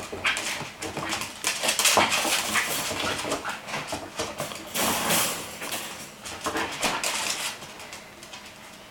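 Scottish terrier puppy playing on a hardwood floor: claws clicking and scrabbling and a hard toy clattering, with small puppy vocal sounds. It comes in uneven bursts, busiest around two seconds in and again near five and seven seconds, then dies down.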